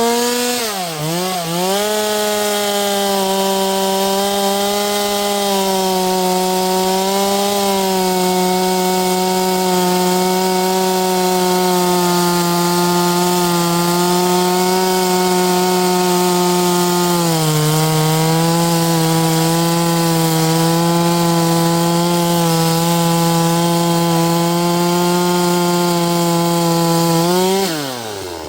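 Holzfforma G260 two-stroke chainsaw (a Stihl MS 260 clone) at full throttle cutting into wood, its engine note held steady under load. It drops lower about 17 seconds in and is released and revved back up near the end. The chain is binding tight on the bar and dragging the engine down, which the owner says is holding the saw back.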